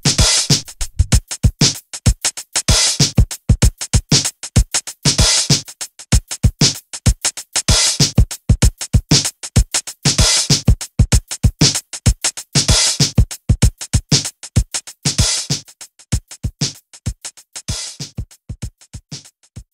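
Background music: an electronic drum-machine beat with steady evenly spaced hits and a cymbal-like wash about every two and a half seconds, fading out near the end.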